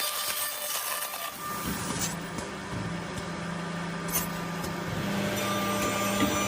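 Edge-banding woodworking machine running: a steady motor hum over a hiss. The low hum drops a little in pitch about a second and a half in and comes back up near the end.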